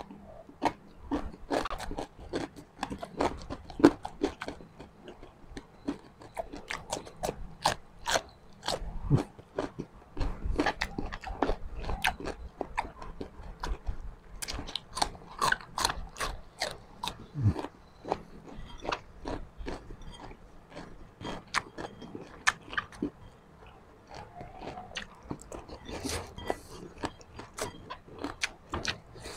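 Close-up chewing and crunching of crispy chicharon (deep-fried pork skin or chicharon bulaklak), a dense, irregular run of sharp crunches.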